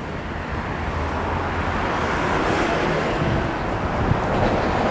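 Road traffic noise, a car passing, its noise swelling and growing louder through the second half.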